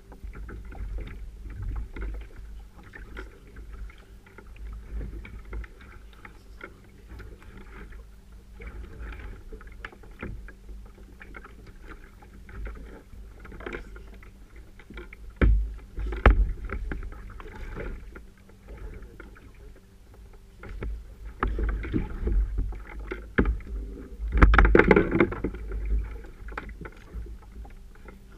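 Sea water slapping and splashing against a paddle ski's hull, over a steady low rumble, with scattered knocks and louder splashes about 15 and 25 seconds in.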